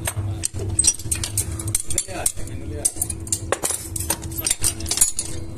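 Repeated metallic clinks and clanks as tongs handle small metal pieces against a steel casting mould. Underneath runs a steady low hum.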